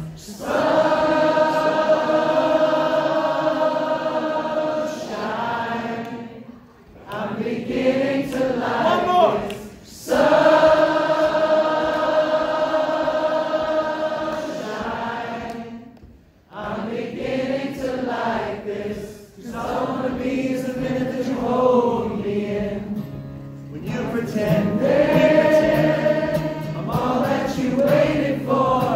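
Many voices singing together over an acoustic guitar: a crowd singalong with the singer, two long held notes of about five seconds each, then shorter phrases.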